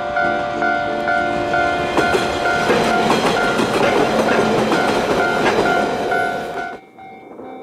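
Flower Nagai Line diesel railcars passing close by, the running noise growing loud from about two seconds in, with sharp wheel clicks over the rail joints. Steady electronic background music plays underneath. The train sound cuts off abruptly near the end.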